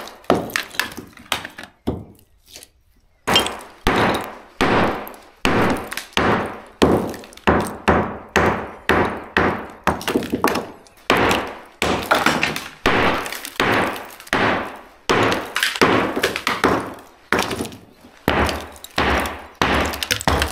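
Hammer blows knocking into the concrete at the base of a block door jamb, a steady run of sharp strikes, about one to two a second, after a short pause about two seconds in, with lumps of concrete breaking away.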